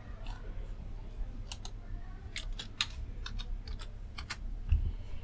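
Typing on a computer keyboard: a run of quick key clicks starting about a second and a half in, over a low steady hum, with a soft thump near the end.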